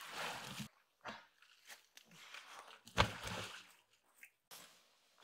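Crunching and rustling of dry leaves and twigs underfoot as a person moves around an old tyre, with one heavy thud about three seconds in as the tyre drops onto the leaf-covered ground.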